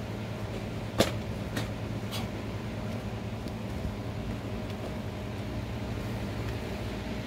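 Three sharp snaps about 0.6 s apart, the first the loudest, from a karate kata's quick techniques. They sound over a steady low hum.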